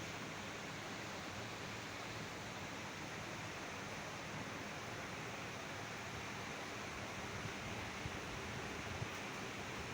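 Steady hiss of background noise, with a couple of faint ticks near the end.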